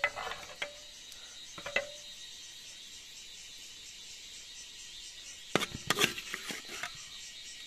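Insects calling steadily in a high, fast-pulsing chorus. A couple of sharp clinks of a ladle against a plate come at the start and about two seconds in, and about two-thirds of the way through a cluster of knocks and scrapes as a ladle works in an iron wok.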